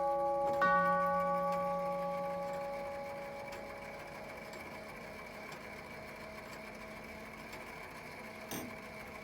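Herschede grandfather clock's tubular chime, with one tube struck about half a second in on the same note that is still ringing from the stroke before. The tone dies away slowly over a few seconds, leaving the clock's steady ticking and a soft click near the end.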